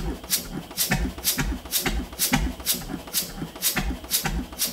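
Old evaporator-cooled stationary engine of about 5000 cc running slowly and evenly, with a sharp beat a little over twice a second and a low thump under each beat.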